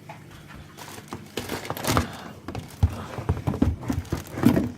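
Dishwasher powder pack being handled and set into a cupboard: rustling packaging with a run of irregular knocks and thuds.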